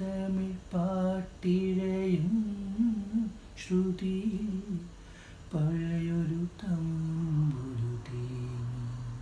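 A man humming a slow melody without words, in several phrases of long held notes that step up and down in pitch, with short breaths between them.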